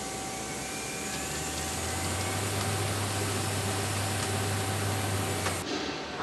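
Muratec MD200G CNC turning center machining: the spindle spins a metal workpiece while a turret insert tool cuts it, giving a steady machine noise with a constant whine. A low hum comes in about a second in, and the sound cuts off abruptly near the end.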